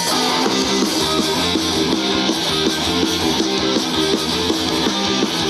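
Rock band playing an instrumental passage with no vocals: guitar plays a run of quick, stepping notes over bass and drums.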